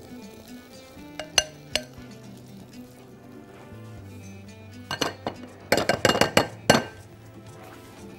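Kitchenware clinking: a spatula knocking against a glass mixing bowl and a frying pan. There are two single clinks, then a quick run of clinks and knocks about five to seven seconds in, over steady background music.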